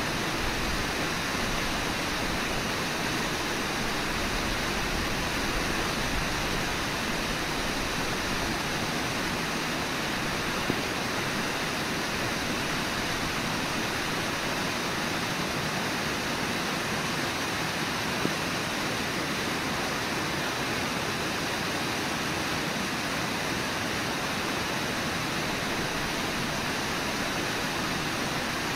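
Rushing water of the Brooks River at Brooks Falls: a steady, even rush with no change in level. Two faint short clicks come through, about ten and eighteen seconds in.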